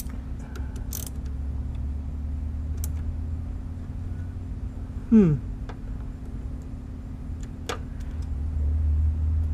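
Fingers working a small screw on a car radiator's plastic end tank, giving a few light clicks. About five seconds in there is a short strained grunt that falls in pitch. A steady low hum runs underneath.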